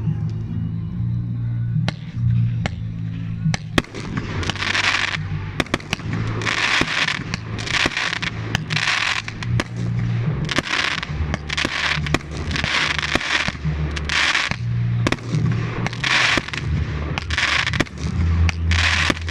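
Fireworks going off: a few sharp bangs, then from about four seconds in a string of hissing, crackling bursts at roughly one a second, with scattered sharp reports among them.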